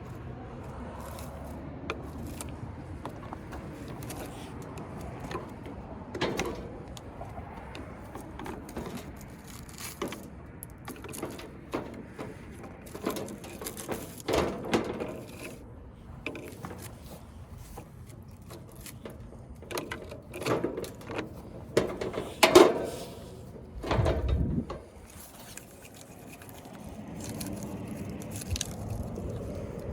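Metal all-thread rod scraping and clicking against metal inside a furnace as it is used to fish out dead birds, in scattered irregular strokes, with a sharp knock about two-thirds of the way through followed by a low thump.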